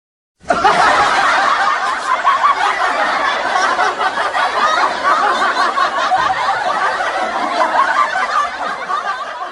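Laughter sound effect: many people laughing heartily at once in a dense, continuous burst. It starts about half a second in and tails off near the end.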